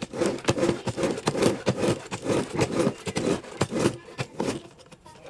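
Plastic floor mop and mop bucket scraping and rubbing in quick, irregular strokes, about five a second, dying away near the end.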